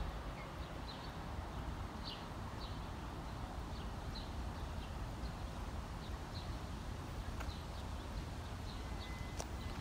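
Scattered short, high bird chirps, a dozen or so at uneven intervals, over a low steady background rumble.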